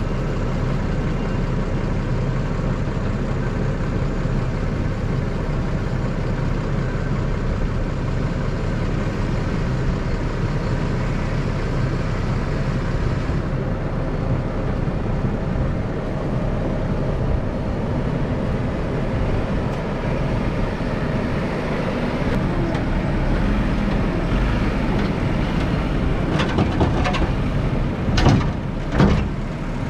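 Diesel engines of a Case IH Puma 185 tractor and a Claas telehandler running steadily. Near the end come a few sharp knocks and rattles as the telehandler's bucket tips horse manure into the spreader.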